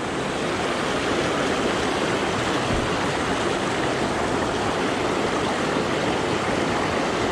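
Small mountain creek rushing steadily, a constant even wash of flowing water.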